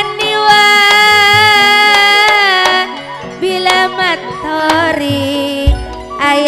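Madurese gending: a singer holds one long note, then sings shorter phrases and settles into another held note, over traditional gamelan accompaniment.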